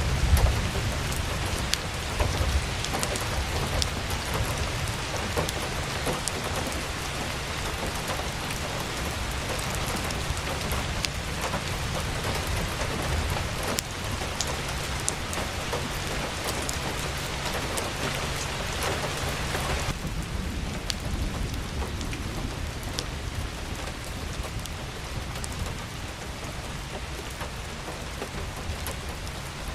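Steady rain falling, an even hiss scattered with individual drop ticks. A low rumble is loudest in the first few seconds, and the hiss thins out about twenty seconds in.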